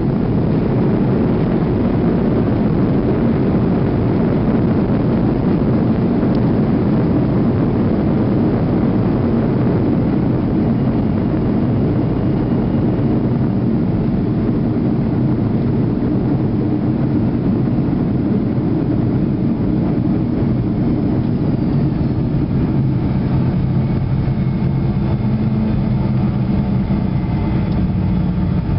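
Cabin noise inside a Boeing 737 rolling along the runway after landing: a loud, steady rumble of engines and wheels that eases a little as the airliner slows, with a faint engine hum showing through near the end.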